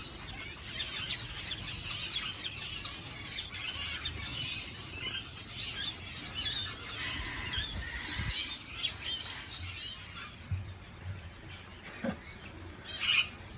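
A flock of weaver birds chattering, many quick high chirps overlapping. The chatter thins out after about ten seconds, and one short sharper call comes near the end.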